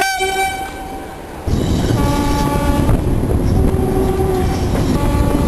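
A train horn gives a short blast. About a second and a half in, the loud rumble and clatter of a train passing close sets in. Over it, the two-tone horn sounds a higher tone and then a lower one.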